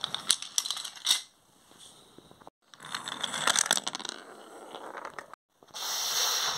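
Wooden toy trains clattering and clicking along wooden track and knocking against each other as they are pushed by hand, in two bursts of quick clicks with a short break between. Near the end a dense crackling noise starts.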